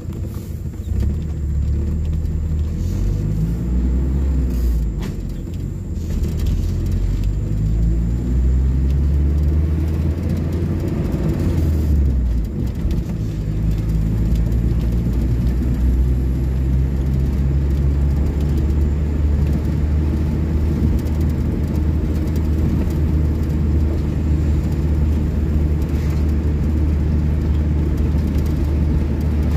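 Car engine and road rumble heard from inside the cabin while driving. The engine note climbs in the first dozen seconds as the car picks up speed, shifts about twelve seconds in, then settles into a steady low drone while cruising.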